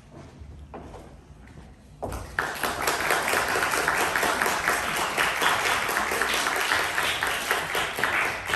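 Audience applauding, the clapping starting suddenly about two seconds in and running on steadily.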